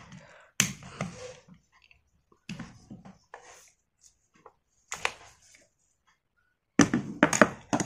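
Scattered clicks and knocks of a screwdriver working the housing screws of a small electric air-horn compressor motor, metal on metal, with a cluster of louder knocks near the end.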